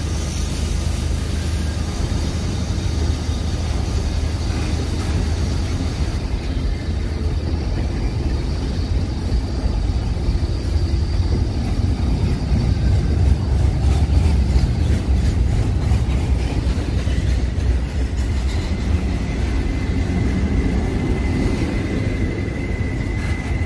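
Double-stack container freight cars rolling past on the rails, a steady heavy rumble of wheels and cars. A faint, thin high tone comes in near the end.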